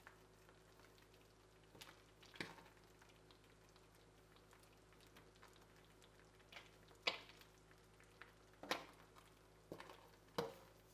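Quiet wet squishes and small pops as a gloved hand presses dye-soaked merino yarn down into a shallow steel pan of dye water: about five short sharp sounds scattered through, the loudest about seven seconds in.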